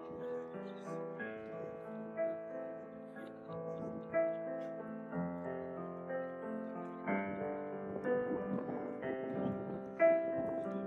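Piano music: slow, sustained chords changing about once a second, growing louder through the passage.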